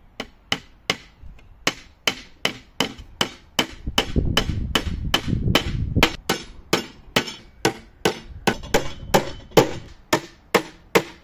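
Small hammer tapping nails through a plywood drawer bottom into the drawer's pine sides, tacking it in place: a long run of light, even taps, about two or three a second. A low rumble sits under the taps for a couple of seconds midway.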